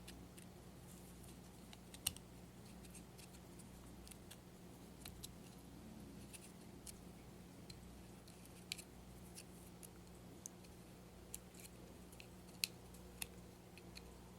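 Small plastic clicks and taps of a Jebao RW-8 wavemaker pump's parts being handled and fitted back together, irregular, with a few sharper snaps among them, over a faint steady low hum.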